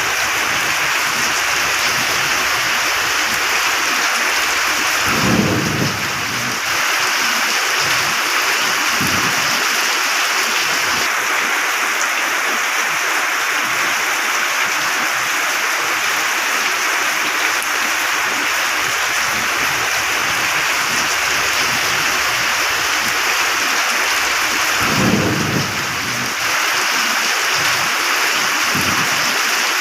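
Steady heavy rain with low rolls of thunder: a stronger rumble about five seconds in, a second about twenty seconds later, and fainter ones between.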